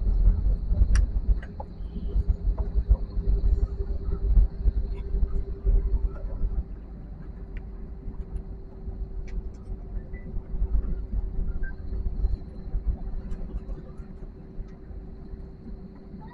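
Cabin noise of an Airbus A320-family airliner in its landing rollout: a heavy low rumble, loudest at first and easing off after about six seconds as the jet slows on the runway, with a steady hum underneath.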